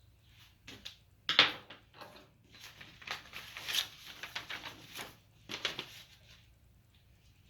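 Rustling and light clicking of latch-hook work: yarn and a latch hook being worked through rug canvas by hand, in a string of short bursts with one louder click about one and a half seconds in.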